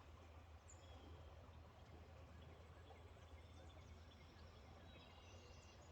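Near silence: faint steady low outdoor background noise, with a few faint, short high chirps.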